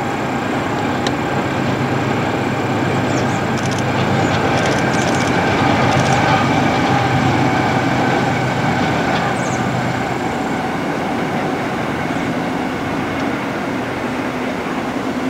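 Union Pacific double-stack intermodal train's cars rolling across a steel trestle viaduct: a steady rumble of wheels on rail, swelling a little midway, with a few faint high clicks.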